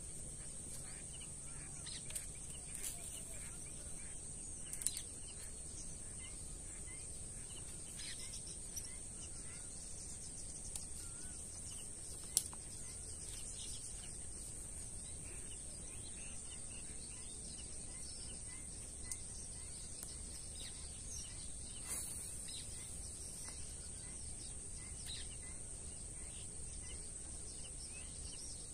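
Rural outdoor ambience: a steady high-pitched insect drone with scattered bird chirps and calls. A few sharp clicks stand out, the loudest about 5 and 12 seconds in.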